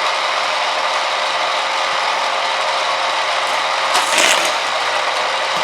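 Hot Wheels track boosters whirring steadily, their battery-powered spinning wheels running with a rattling, gear-like sound, and a brief louder rattle about four seconds in.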